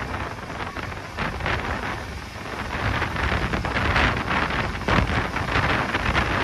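Wind buffeting the microphone on a moving train, gusting unevenly over the low rumble of the running train.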